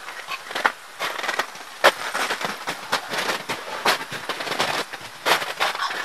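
Snow and ice crunching and crackling in irregular, uneven bursts, with a few sharper cracks among them.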